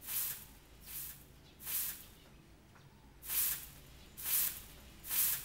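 Stick broom of thin stiff bristles sweeping dirt ground: six short dry swishes, with a longer pause in the middle.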